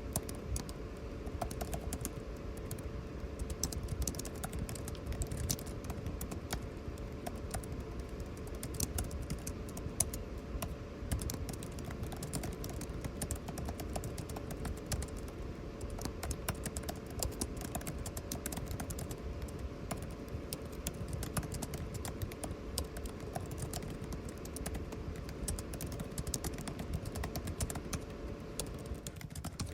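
Computer keyboard typing, a steady irregular run of key clicks, over the constant hum of air conditioning.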